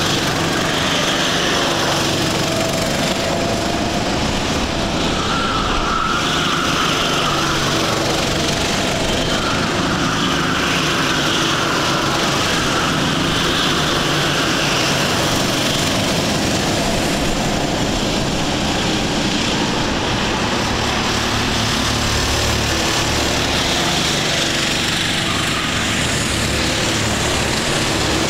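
Engines of several racing rental karts running at race speed as they lap past, a continuous mixed drone whose pitch shifts as the karts pass and accelerate out of the corners.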